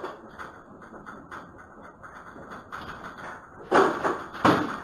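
Shop counter, shelving and goods rattling and knocking as the building shakes in a strong earthquake, picked up by a security camera's microphone. Two loud bangs come about four seconds in.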